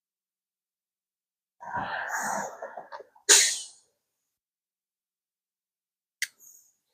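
A person sneezing once: a rough drawn-in build-up, then a sharp, loud burst.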